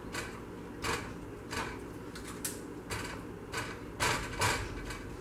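A spoon stirring and scraping against the bottom of a pot holding sugar, corn syrup, cream and still-unmelted butter: a series of short scrapes at irregular intervals, about one or two a second.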